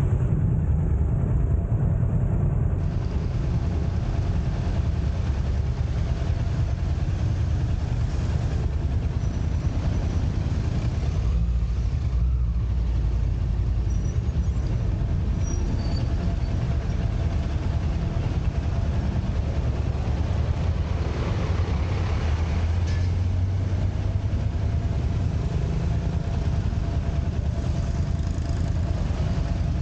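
Steady low rumble of a motorcycle riding in town traffic, heard from a camera mounted on the bike, with a louder swell of passing traffic noise about three-quarters of the way through.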